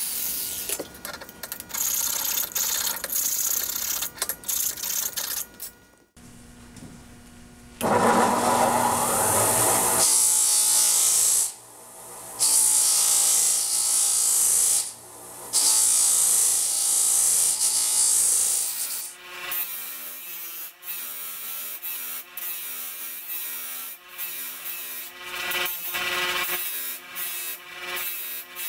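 An abrasive flap disc on an angle grinder sanding a beryllium copper hammer head in short passes. Then a bench grinder's 320-grit flap wheel grinds the head in long, loud passes, broken twice briefly as the head is lifted off. In the last third the wheel touches the metal only lightly and on and off.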